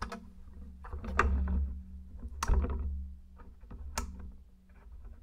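Incandescent light bulb flickering: a low electrical hum with sharp clicks and crackles about every second or so, the hum swelling with each burst.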